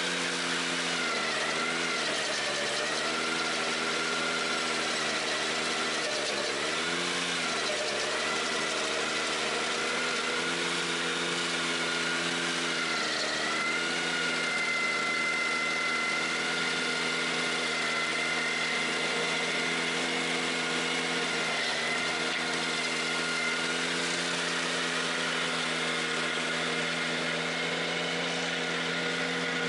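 Ventrac 4520Z tractor engine running hard, driving a KC180 stump grinder whose cutter wheel is chewing into a stump. The engine pitch sags briefly several times as the cutter bites and loads it, then recovers. A steady high whine rides over the engine.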